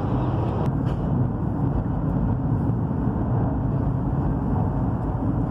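Steady low rumble of a high-speed train's passenger cabin while running at about 238 km/h, with a couple of faint clicks about a second in.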